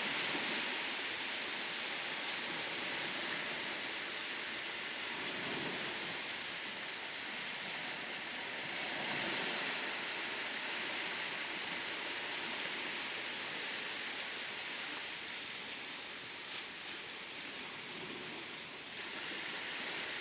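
Waves on the bay: a steady hiss of surf that swells and eases, loudest about halfway through.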